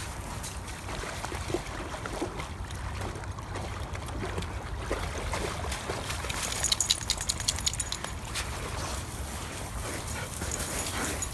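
Dog sounds, with a steady low rumble underneath and a quick run of sharp clicks about seven seconds in.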